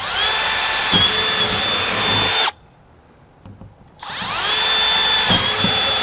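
Milwaukee cordless drill boring mounting holes through an RV entry door, in two runs. Each run spins up with a rising whine and then holds a steady high pitch. The first stops about two and a half seconds in, and the second starts about four seconds in.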